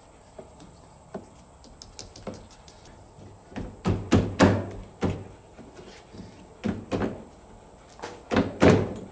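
Irregular thunks and knocks on a pickup truck's door, in several loud clusters, with lighter ticks in between, as broken tempered-glass pieces are cleared out of the door.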